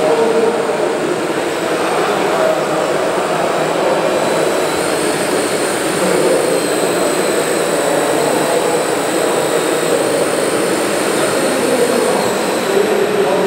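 Radio-controlled Liebherr 954 model excavator working, its hydraulic pump giving a steady high whine that shifts in pitch about five seconds in and again near the end, over the constant murmur of a crowded hall.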